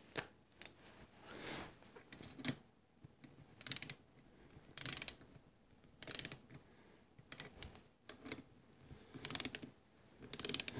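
Ratchet of an inch-pound torque wrench clicking in short bursts, one every second or so, as screws on a Holley 4160 carburetor are run down in a crisscross pattern to about 27 inch-pounds.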